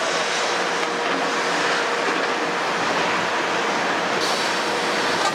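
Kobelco 350 excavator's Hino six-cylinder diesel running steadily as the machine digs, a constant mechanical noise with a faint steady tone through it.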